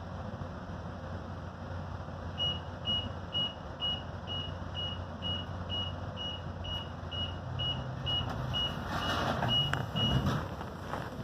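Commuter train door-closing warning: a long row of short, high beeps, about two a second, over the steady low hum of the standing train. Near the end the beeping stops among a few knocks, and the train's engine and running noise rise as it starts to pull away.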